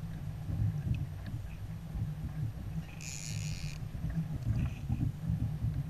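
Steady low rumble of wind and water around a fishing kayak on the open sea, with a brief hiss about three seconds in.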